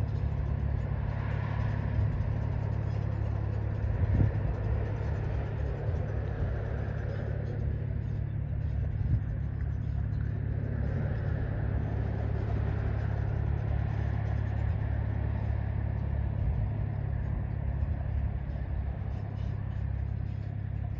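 Wind buffeting the microphone: a steady low rumble that flutters constantly, with a fainter hiss above it.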